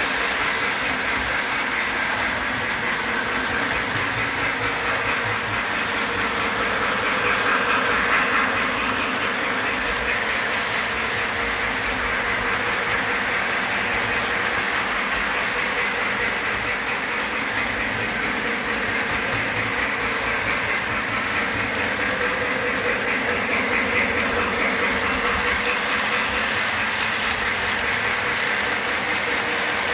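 Electric model freight train running around its track, a steady rolling clatter of wheels on the rails with a faint wavering motor hum.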